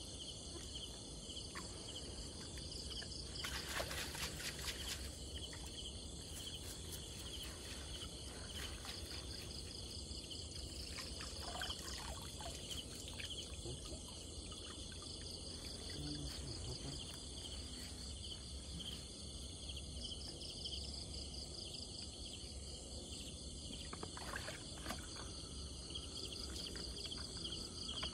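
Steady chorus of night insects singing, with water splashing and running off a net fish trap as it is lifted and handled in a ditch, a few times, loudest about four seconds in.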